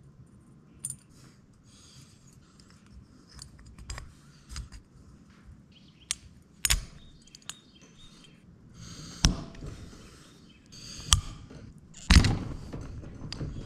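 Small metal parts clicking and clinking as valve-train pieces are fitted into an aluminum small-engine cylinder head by hand: scattered sharp clicks and knocks with quiet between, the loudest ones in the last few seconds.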